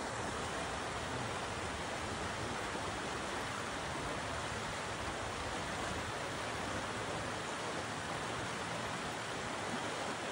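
Steady, even rush of a shallow river running over rocks.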